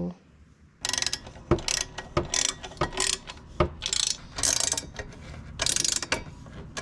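Ratchet wrench being worked in quick, irregular strokes, rasping clicks with a few sharper knocks in between.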